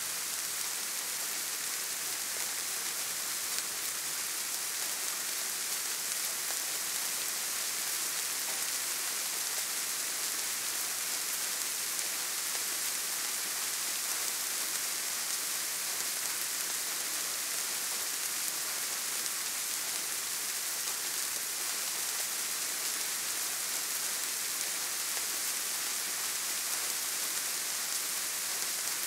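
Soft rain falling steadily, an even hiss with no thunder and no separate drips standing out.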